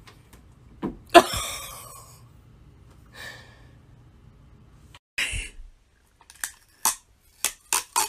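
A cat scrambling out of a cat-tree basket: a light knock, then a loud thud about a second in with a rustling tail. Another thud comes around five seconds in, and a run of short sharp clicks or taps near the end.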